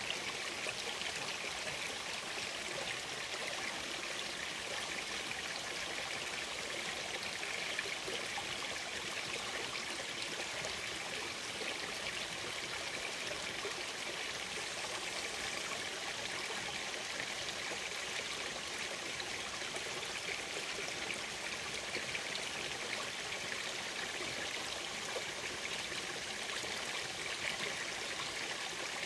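A small forest brook running steadily, an even rush and trickle of water.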